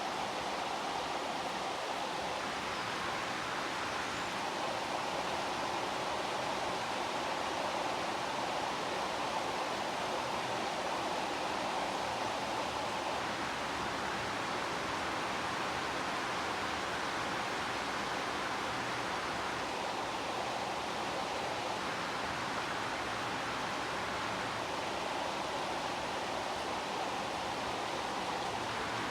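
Heavy rain falling steadily, an even, dense hiss with no thunder.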